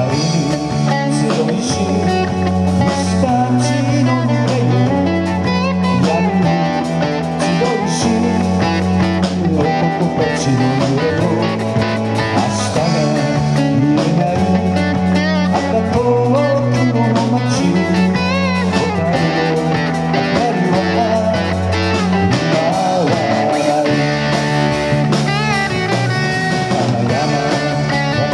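Live rock band playing an instrumental passage on guitars, bass, drums and keyboard, with a lead line that bends in pitch over a bass pattern changing about once a second.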